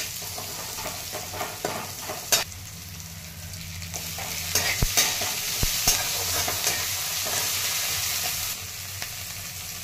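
Onion, peanuts and green chillies frying in hot oil in a non-stick kadai, a steady sizzle, with a steel spatula stirring and scraping the pan and giving a few sharp taps. The sizzle grows louder about halfway through and drops back near the end.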